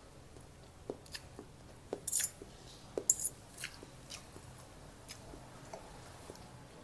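Close-miked eating: chewing with small mouth clicks, and a metal spoon and fork clinking and scraping on a plate. The sharpest clinks come about two and three seconds in.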